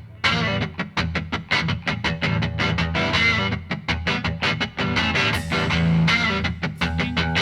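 Background music led by fast-picked guitar, with many quick plucked notes.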